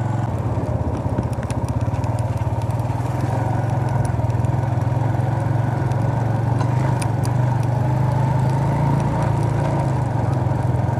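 Suzuki GS 150's single-cylinder four-stroke engine running as the motorcycle rides along a dirt track, a steady drone that picks up slightly in the first few seconds.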